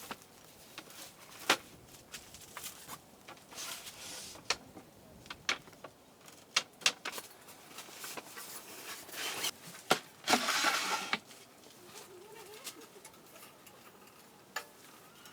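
Scattered handling noises: sharp clicks and knocks, the loudest about a second and a half in, and a few rustling bursts, the longest around ten seconds in, over a faint steady hiss.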